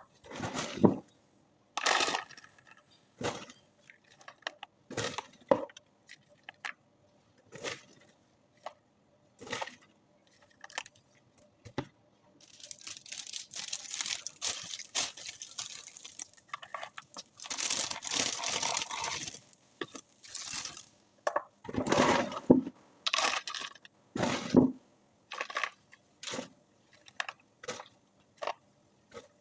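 Handling of popcorn and its packaging: scattered taps, knocks and crinkles, with two longer stretches of rustling about halfway through.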